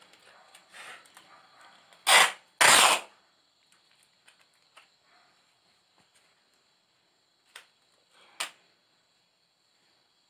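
Insulation tape pulled off its roll in two short, loud rips about two seconds in, followed by a few light taps as the panel is handled. A faint, steady high chirring of crickets runs underneath.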